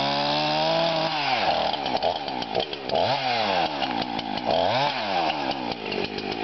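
Husqvarna 350 two-stroke chainsaw running at high throttle while cutting wood. The engine pitch rises and falls several times as the chain works through the cut.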